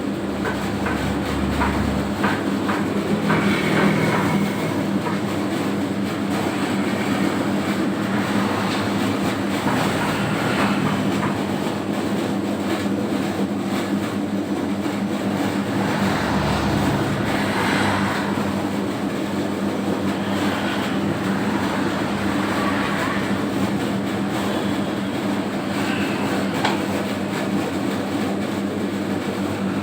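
Home-built 3 kg dough mixer running steadily under power, with a constant motor hum and a rhythmic mechanical clatter.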